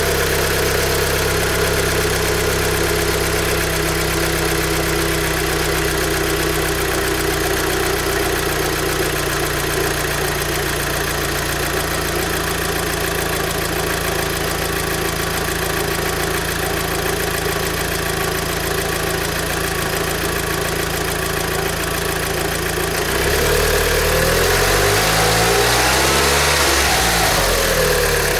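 Audi TTS 2.0 TFSI turbocharged four-cylinder engine idling after a cold start, its raised warm-up idle dropping and settling to normal idle about halfway through. In the last few seconds it is revved, the pitch rising and falling with each blip.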